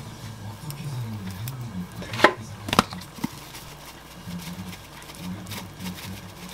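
Two sharp taps about half a second apart, a couple of seconds in, then a lighter one, from a dried-parsley container being handled and shaken over a plated okonomiyaki, over a faint low hum.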